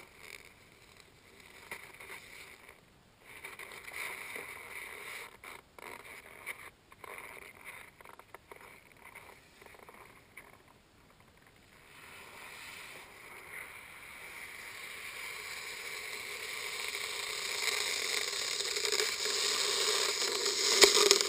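Muffled rubbing and scraping against a covered action camera, broken by short quiet gaps. About twelve seconds in, a rushing hiss starts and grows steadily louder.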